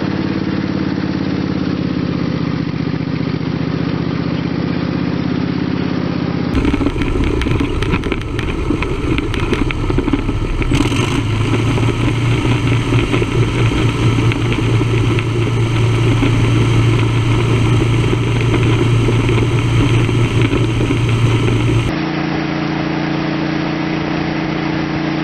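Repowered lawn tractor's single-cylinder-class small engine running: a steady idle, then from about six seconds in a louder, rougher run at higher speed with a strong steady low hum. It drops back to the smooth idle about 22 seconds in.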